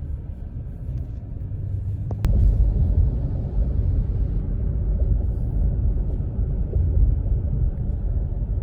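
A steady low rumble that gets louder after a sharp click about two seconds in.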